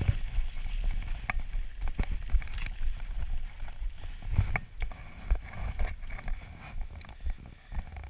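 Mountain bike rolling fast downhill over a rough dirt trail: tyre noise on the loose dirt with frequent knocks and rattles from the bike over bumps, heard through a rider-mounted action camera. It eases off about halfway through.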